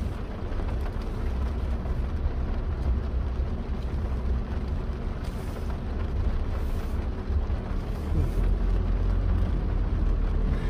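Heavy rain falling on a car's roof and windshield, heard from inside the cabin, over a steady low rumble of the car. The rumble grows a little louder about eight seconds in.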